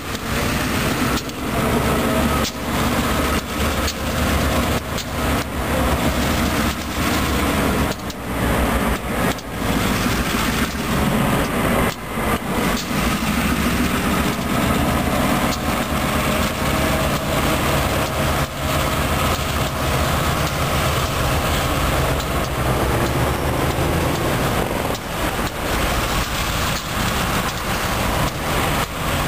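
Two EMD diesel-electric switching and road locomotives, an MP15AC and a GP38-2, running steadily as they pull a freight train past. Their wheels and the cars behind give scattered sharp clanks at uneven intervals.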